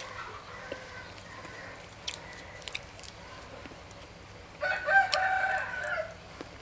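A rooster crows once, a pitched call about a second and a half long, starting about four and a half seconds in. A few faint sharp clicks of eating come before it.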